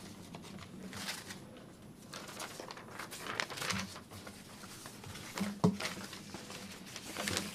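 Scattered rustling and scraping noises, a few at a time, over a low steady hum in a small room.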